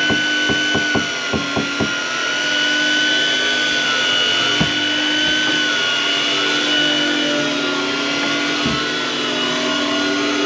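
A motor whining steadily, its pitch wobbling slightly as the load changes. A quick run of sharp clicks comes in the first two seconds, and there are two single knocks later.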